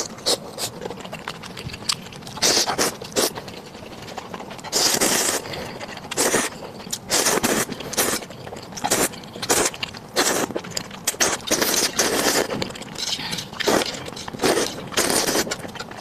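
Close-miked eating of instant noodles in soup: a string of short, noisy slurps and mouth sounds, some lasting about half a second, with quieter gaps between them.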